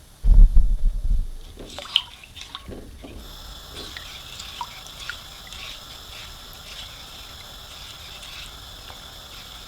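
A loud low knock near the start, then liquid dripping and trickling with scattered small clicks.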